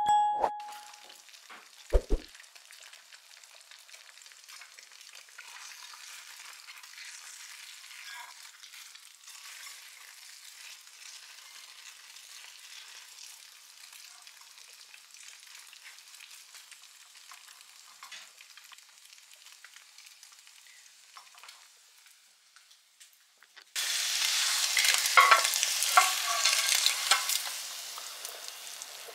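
Faint scraping and wiping noises of kitchen cleaning, with a short ringing chime at the start and a knock about two seconds in. About 24 seconds in, a much louder hissing spell starts and fades away over the last few seconds.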